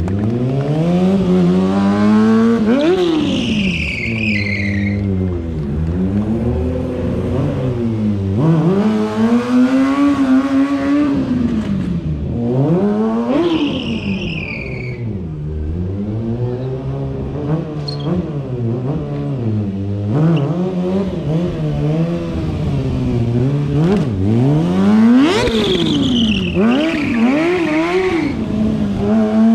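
Stunt motorcycle engine revving up and dropping back over and over as it is ridden hard, with three high falling screeches of tyre squeal spread through the run.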